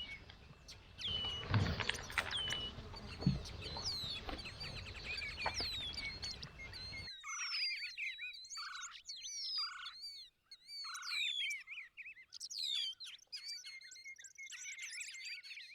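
Wild birds chirping and whistling, with a short call repeated about once a second in the second half. For the first seven seconds there is also rustling with sharp clicks and snaps, typical of cattle pulling at leafy branches, which cuts off suddenly.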